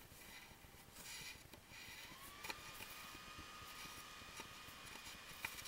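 Very faint rustling of embroidery floss and fingers as knots are tied by hand, with a couple of soft clicks and a faint steady high tone coming in about two seconds in.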